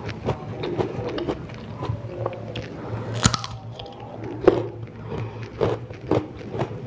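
Biting into and chewing slices of raw ambarella (kedondong) fruit, a very crunchy, crisp flesh: irregular crunches, with the loudest bite about three seconds in and another about a second and a half later.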